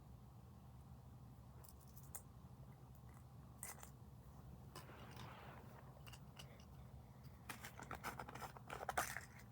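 Handling noise of small hard objects: scattered light clicks, a short scrape about five seconds in, then a quick run of clicking and scraping near the end, over a steady low hum.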